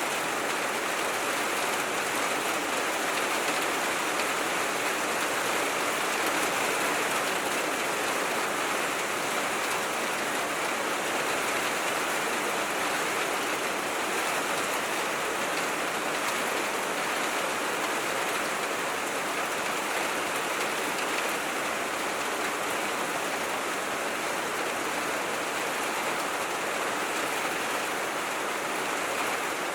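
Steady rain falling on a tin roof, an even, unbroken hiss at constant strength.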